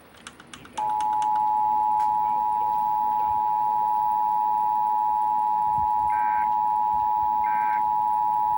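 Emergency Alert System attention signal: the two-tone 853 and 960 Hz alert tone, steady and loud, starting about a second in and held. It warns that an emergency message is about to be read.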